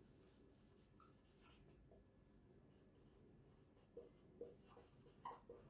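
Faint squeaks and scratches of a marker writing on a whiteboard, with a quick run of short, sharper strokes in the last second and a half.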